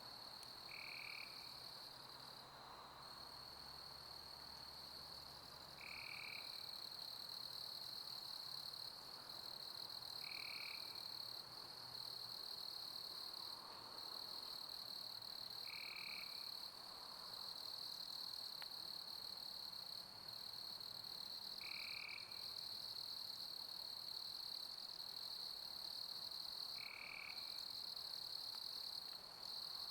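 A steady night chorus of crickets, a constant high-pitched trill. A short, lower chirp repeats about every five seconds.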